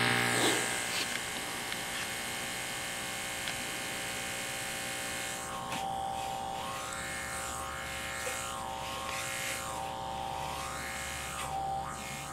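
Loudspeaker wired directly to a 120 V household wall socket, buzzing steadily at mains frequency with many overtones. The cone is being overdriven by mains power and is smoking as it burns up.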